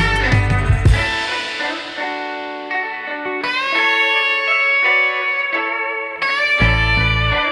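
Background music led by guitar with long held notes; the bass and beat drop out about a second in and come back near the end.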